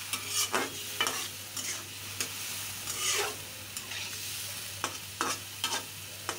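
Flat metal spatula stirring potato pieces in a karahi, with a series of short scrapes and knocks against the pan, over a steady sizzle as the potatoes are braised in spices with a splash of water.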